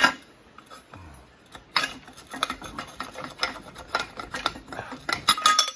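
Irregular sharp metallic clicks, clinks and scrapes, coming faster near the end, as a loosened cylinder liner is worked up out of a Case 188D diesel engine block with a homemade puller.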